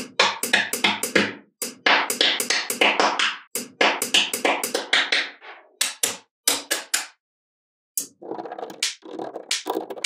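Small magnetic balls clicking and clattering against each other as blocks of them are snapped onto a wall of balls. The sharp clicks come in quick runs, broken by short pauses, with one longer pause near the end.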